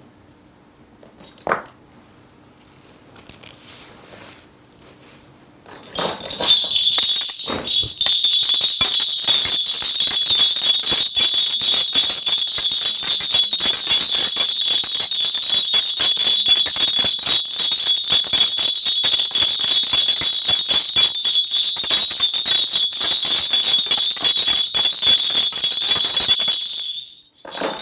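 Korean shaman's bell cluster (mudang bangul) shaken continuously for about twenty seconds: a dense, bright jingling that starts about six seconds in and stops shortly before the end, as shamans do to call on the spirits before a divination. Before it there is only faint room tone with a single click.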